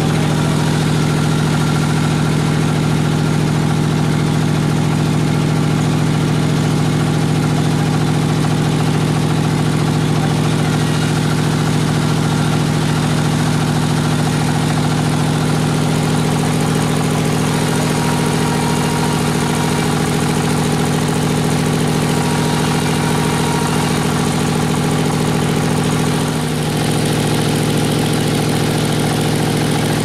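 Band sawmill running steadily, a constant loud drone from its drive, with a brief dip and a slight change in the drone near the end.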